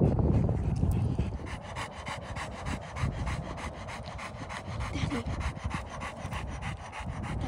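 Rottweiler panting quickly and evenly after running to fetch a ball. A low rumble sits under the first second.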